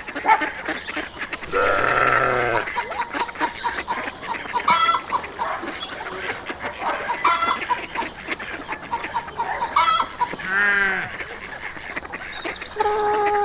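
A farmyard flock of poultry calling: geese honking and chickens clucking over a steady busy chatter. Short calls come every couple of seconds, and two longer, louder calls come about two seconds in and near eleven seconds in.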